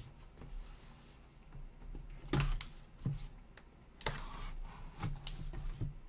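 Cardboard box being handled and opened by gloved hands: a handful of sharp knocks and scrapes of cardboard, the loudest about two and a half and four seconds in.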